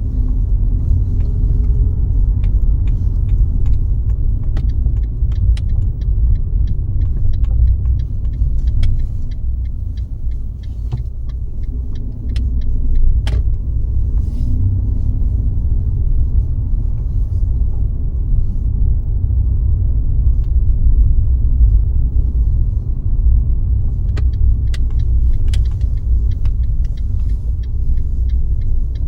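A car driving at steady speed, with a continuous low road and engine rumble. Many light, irregular ticks and clicks sound over it, thickest near the end.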